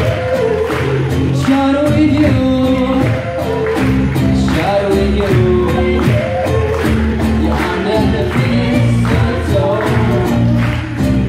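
Live acoustic band playing a song: voices singing over acoustic guitars and a bass guitar, with a steady hand-played cajón beat.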